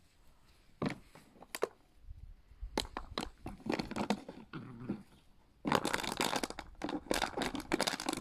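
Empty plastic water bottle crackling and crunching as two puppies bite and chew it: a few separate cracks at first, then a dense run of crunching over the last two and a half seconds.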